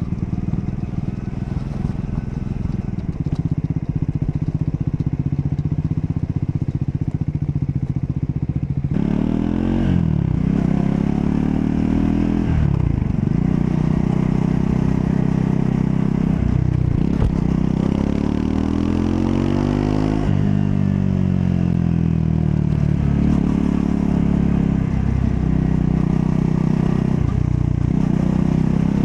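Triumph Scrambler 400 X's 398 cc single-cylinder engine under way, running at a steady pitch at first. About nine seconds in, the revs start rising and falling over and over as the bike accelerates and shifts gears, then ease back down.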